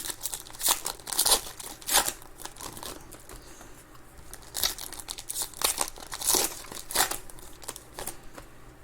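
Plastic trading-card pack wrappers being torn open and crinkled by hand, in irregular sharp crackly bursts.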